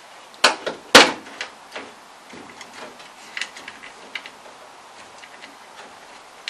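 Several sharp clicks and knocks, the loudest about a second in, then lighter scattered ticks, from hands working at the rusted metal roof edge of a VW T2 van.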